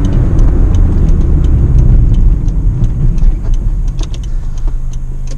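Honda Civic's small four-cylinder engine running loud through a broken exhaust, heaviest for the first two seconds or so, then easing off and settling into a steady low hum near the end. A light regular ticking, about two to three a second, runs under it.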